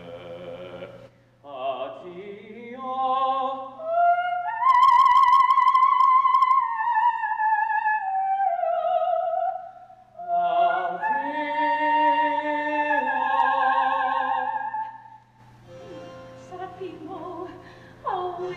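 Operatic soprano singing with vibrato. The voice climbs through short phrases, holds a high note for a few seconds that slowly slides down, then sings further sustained phrases before dropping away near the end.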